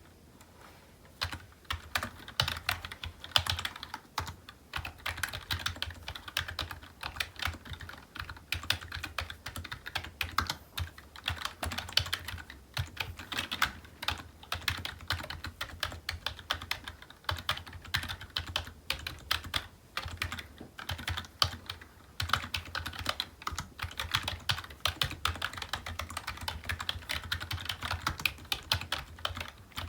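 Typing on a computer keyboard: a fast, uneven stream of key clicks that starts about a second in and keeps going.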